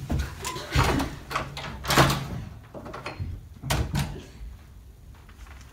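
A room door knocking and thudding as it is pushed open and swings shut: a handful of sharp knocks over a few seconds.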